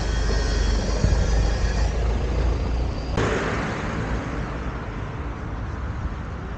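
Van's engine rumbling close by as it passes. About three seconds in the sound cuts abruptly to a steady rush of road traffic.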